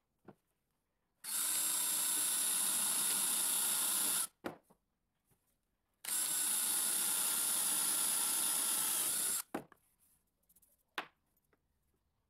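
Cordless drill boring pilot holes into a pine board through the screw holes of a pipe-clamp fixture: two steady runs of about three seconds each, with a few light clicks between and after.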